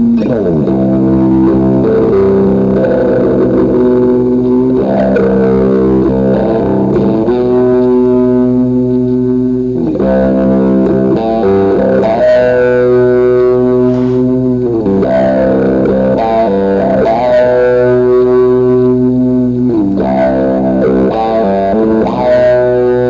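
Rock music led by distorted electric guitar: sustained chords that slide down in pitch every few seconds, played loud and steady.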